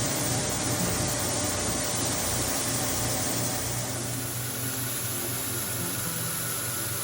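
American Sanders five-head Hydrasand sanding attachment running steadily on a floor machine, grinding over hickory hardwood flooring: a loud, even hiss over a low hum, shifting slightly higher about four seconds in.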